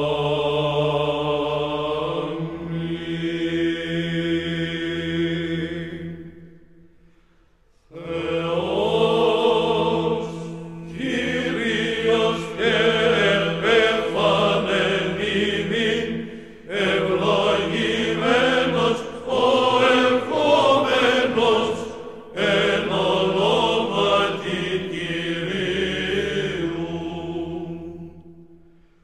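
Chant-style choral vocal music: voices holding long sung notes in slow phrases, with a short break about seven seconds in, fading out near the end.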